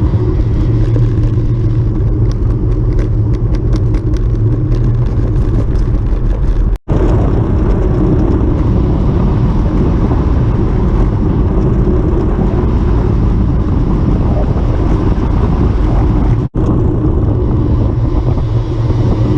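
Steady low rumble of wind and road noise from a bicycle ride. A run of light clicks and rattles comes a couple of seconds in, and the sound cuts out for an instant twice.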